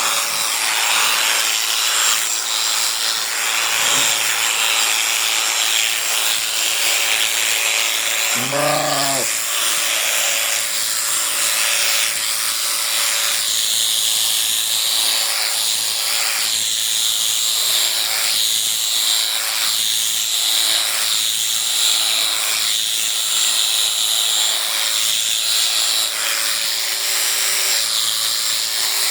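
Electric sheep shears running steadily, with a repeated stroke about once a second as the cutter works through the fleece. A sheep bleats once, about nine seconds in.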